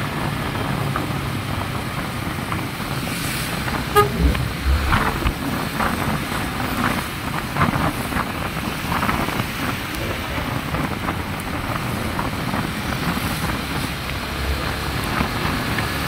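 Wind buffeting the microphone over the engine and tyre noise of a Yamaha underbone motorcycle cruising at about 60 km/h on a wet road. A brief horn beep sounds about four seconds in.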